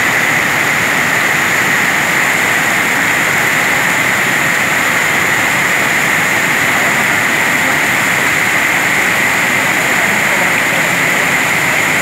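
Steady rush of a swollen river pouring over a spillway and churning in the pool below.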